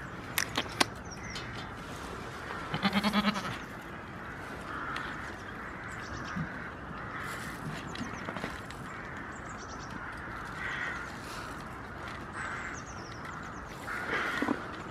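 A goat bleats once, loud and quavering, about three seconds in, after a few sharp clicks near the start. Softer short bird calls come and go in the background, and another louder call sounds near the end.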